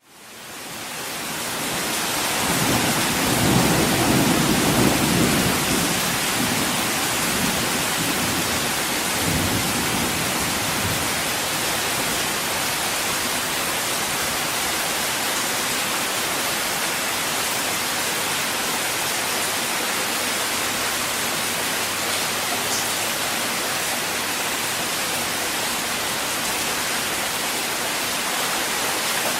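Steady heavy rain fading in over the first two seconds, with a low rumble of thunder a few seconds in and a weaker one about ten seconds in.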